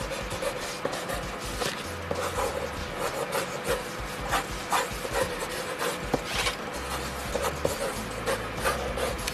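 Mechanical pencil lead scratching across paper in quick, irregular sketching strokes, with faint background music.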